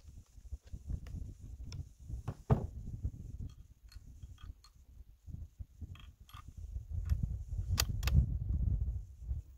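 Scattered clicks and knocks from handling a scoped Browning 7mm Remington Magnum rifle rested on sandbags. The sharpest click comes about two and a half seconds in and a pair of sharp ones near the end, over a low rumble that grows louder in the last few seconds.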